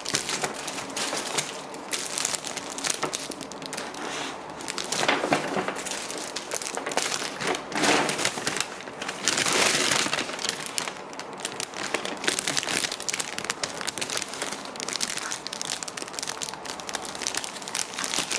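Crinkling and crackling in dense, irregular clicks, louder for a moment about halfway through.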